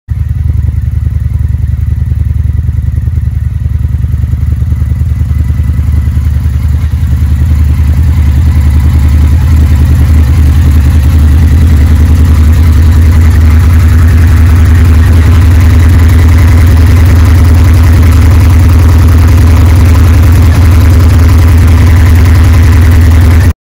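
Indian FTR1200's 1203 cc V-twin engine idling steadily, a low, even exhaust note with no revving.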